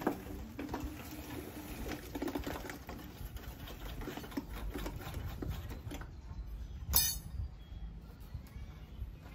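Scattered light knocks and scrapes of hand masonry work on a concrete hollow-block wall, with one sharp, ringing metallic clink about seven seconds in.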